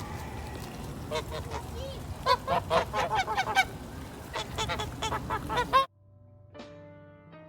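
Geese honking in a rapid series of calls over outdoor background noise. The calls cut off abruptly near the end, and soft music with plucked strings comes in.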